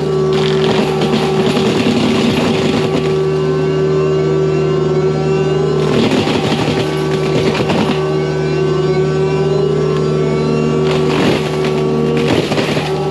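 Excavator-mounted forestry mulcher (Prinoth M450e-900 head on a Kubota U55-4) running with a steady drone, with three bursts of grinding as the drum chews into wood: near the start, about six seconds in, and near the end.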